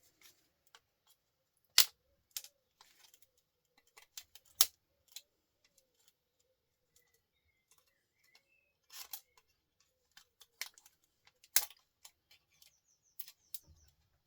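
Small hand cutters snipping components off a circuit board: scattered sharp clicks and snaps, three of them much louder than the rest.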